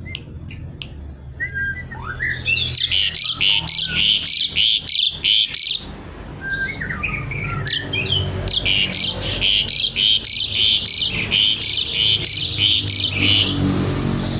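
Asian pied starling (jalak suren) singing in its 'kretekan' style: two long bouts of fast, harsh, rattling chatter, each several seconds long, each led in by a few short whistled notes.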